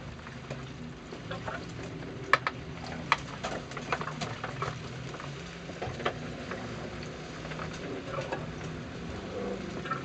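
Pan of baked beans bubbling on the stove, with irregular pops and plops, the sharpest about two seconds in, over a steady low hum.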